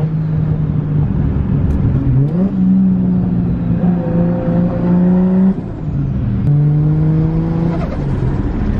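Toyota Chaser's engine running under way as it is driven. The engine note holds steady, jumps or drops in pitch several times, and holds again between the changes.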